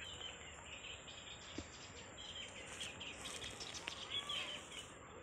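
Small birds chirping in short, high calls, most of them in the second half.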